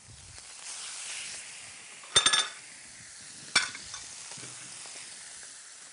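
Stuffed chicken breasts sizzling in a very hot, lightly oiled frying pan, a steady hiss that swells briefly near the start. A short ringing clatter comes about two seconds in and a single sharp click about a second later.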